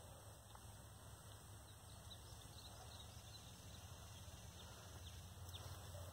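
Near silence: faint outdoor background with a low steady hum and a few faint, short high ticks.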